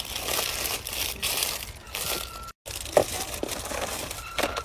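Crinkling and rustling of plastic packaging as bagged fidget toys are handled; the sound cuts out completely for a moment about halfway through.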